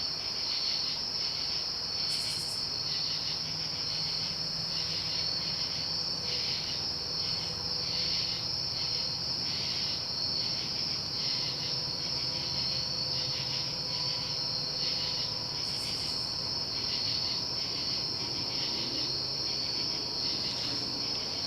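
Steady high-pitched chirring of crickets that pulses about once or twice a second, over the faint low hum of a vintage Evergo ceiling fan's spinner motor running smoothly on good bearings.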